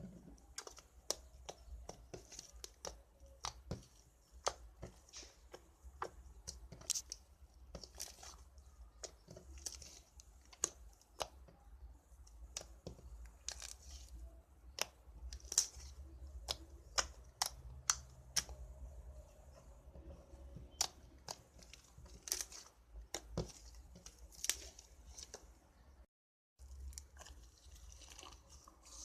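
Slime being squeezed and pressed by hand, giving irregular crackling pops and clicks, one to three a second, with a brief cut to silence near the end.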